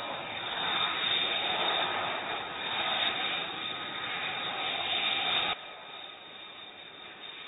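F-35B jet engine running loud: a rushing noise with a steady high whine in it. About five and a half seconds in it drops suddenly to a quieter, more distant jet sound.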